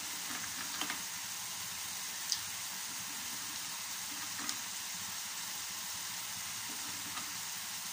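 Carrot halwa bubbling and sizzling in a pan as its sugar syrup cooks down and thickens, with a few faint ticks.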